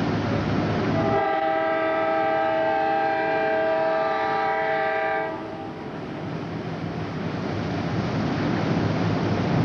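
Passenger train's air horn sounding one long blast of about four seconds, a steady chord of several tones, starting about a second in and cutting off sharply. A steady rumble from the passing train runs under it and grows louder after the horn stops.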